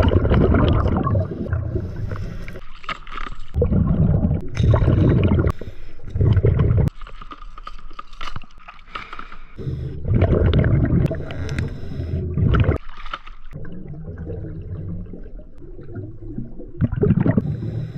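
Scuba regulator exhaust underwater: a diver's exhaled breaths released as rushing, gurgling bubble bursts, each lasting a few seconds with quieter gaps between.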